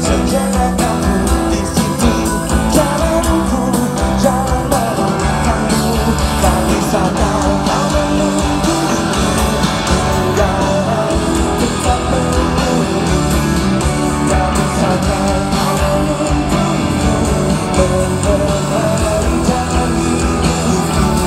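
Live rock band playing through a concert PA, with electric guitars and drums, heard loud and unbroken from the audience.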